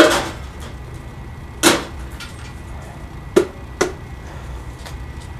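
Metal-melting furnace burner running with a steady low rumble. Four sharp knocks or clanks sound over it: the loudest right at the start, another under two seconds in, and two close together a little before four seconds in.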